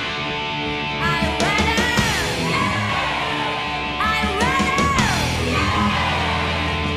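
Rock music with a steady beat, and a gliding high phrase that rises, holds and falls, repeating about every three seconds.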